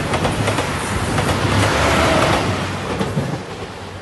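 JR Shikoku 2700 series diesel express train passing close by at speed, its wheels clattering over the rail joints. The sound swells to a peak about two seconds in, then starts to fade as the train moves away.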